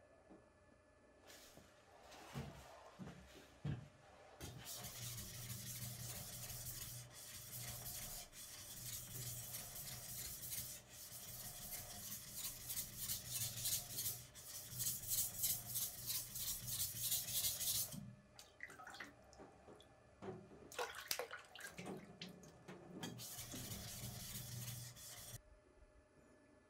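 Usuba knife blade honed by hand on a wet whetstone: rapid back-and-forth strokes of steel rubbing on stone, in two long runs with a short pause between them. A few knocks come just before the first run.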